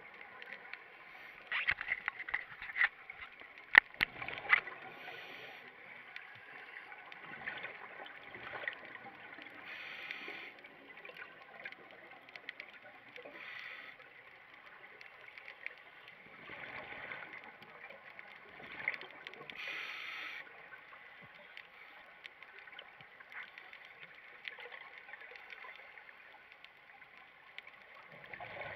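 A scuba diver breathing underwater through a regulator: bursts of exhaled bubbles come every few seconds. A few sharp clicks sound in the first few seconds.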